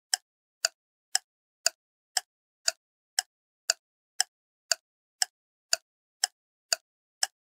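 A ticking click sound effect for an animated title intro: short, sharp clicks evenly spaced at about two a second, with silence between them.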